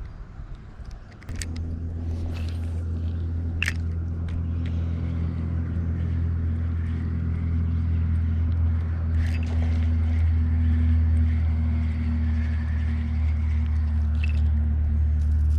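A motor's steady low hum with several held tones, starting suddenly about a second in and slowly growing louder. A few sharp clicks sound over it.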